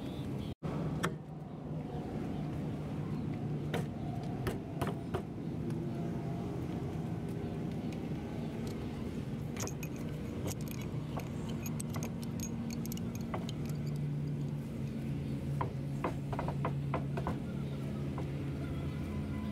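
Irregular metallic clinks and taps of hand tools against a heavy truck's wheel and its nuts, coming in small clusters, over a steady low hum.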